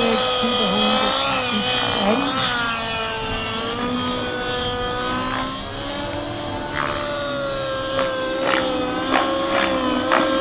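Align T-REX 700 Nitro RC helicopter's nitro engine and rotor running at high speed. The whine swings up and down in pitch as the helicopter is thrown through 3D manoeuvres, then holds steadier. From about eight seconds in, sharp regular beats, two or three a second, sound over it.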